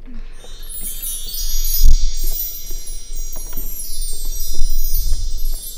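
Wind chimes ringing as a magic sound cue, many high tinkling tones overlapping, starting just after the beginning. A dull low thump comes about two seconds in and another around five seconds.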